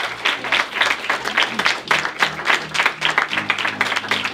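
Hand-clapping applause, many quick irregular claps, with background music whose low bass notes come in about two seconds in.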